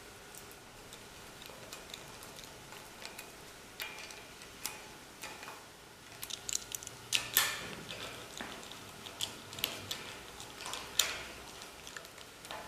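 Small metal parts and hand tools being handled while a tail rotor gearbox is fitted to an aluminium tail boom: scattered light clicks and taps of screws and a screwdriver on metal, busier in the second half, with sharper knocks about seven and eleven seconds in.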